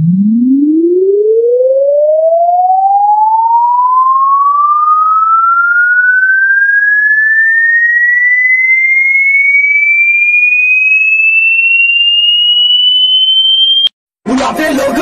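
Electronic pure-tone frequency sweep: a single clean tone glides smoothly upward from a low hum to a high whistle over about fourteen seconds, then cuts off abruptly near the end, where music comes in.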